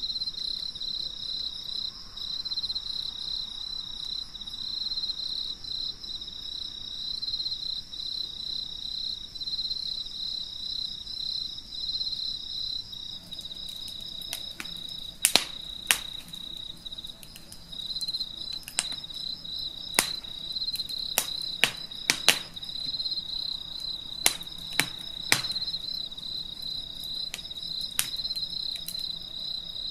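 Crickets chirping in a steady, pulsing high trill. In the second half about a dozen sharp, separate taps fall irregularly over the trill.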